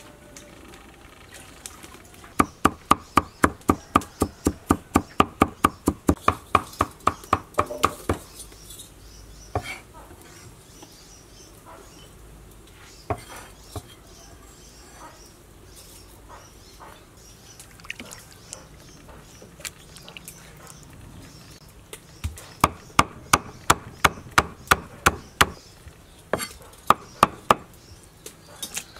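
Knife chopping on a cutting board in two quick runs of steady strokes, about four a second, with a few single knocks in between.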